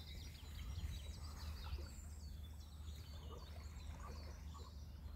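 Faint small birds chirping and twittering, many short high calls, over a steady low rumble.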